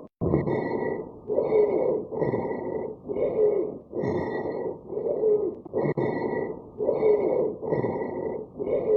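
Stridor: a high-pitched, musical noise on every breath over rough airflow noise, about one breath a second. It is the sign of a narrowed upper airway, as in croup, epiglottitis or an inhaled foreign body.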